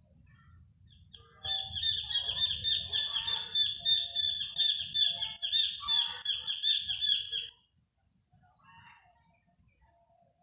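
A bird calling loudly in a fast run of short, repeated high notes, starting about a second and a half in, lasting about six seconds and cutting off suddenly.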